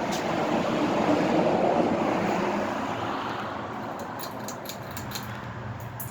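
A passing vehicle whose road noise swells about a second and a half in, then slowly fades, over a steady low hum. A few light clicks come near the end.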